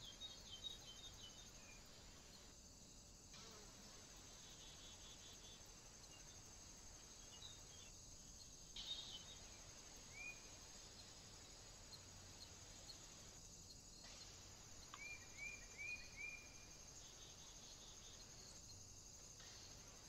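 Faint woodland ambience: a steady high-pitched hiss with scattered small-bird chirps, including a quick run of four short rising notes about three-quarters of the way through.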